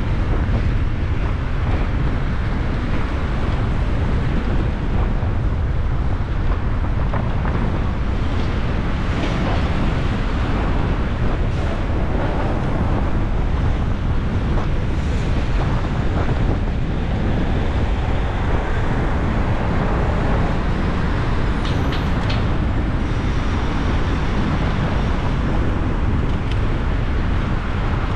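A car driving along: a steady low rumble of road and wind noise, with faint sounds of traffic around it.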